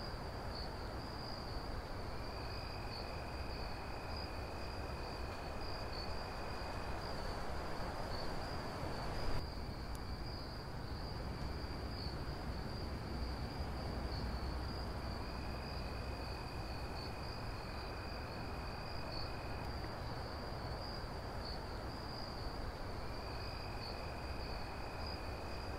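Crickets trilling steadily at night, with a second, lower-pitched insect trill that comes and goes in stretches of a few seconds, over a faint background hiss.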